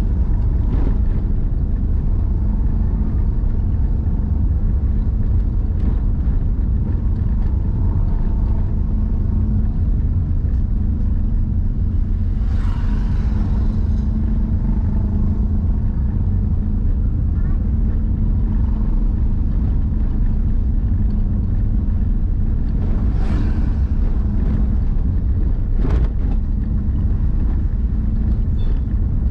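A car being driven, heard from inside the cabin: a steady low rumble of engine and road noise with a faint steady hum, and brief louder passing noises about 13 and 23 seconds in.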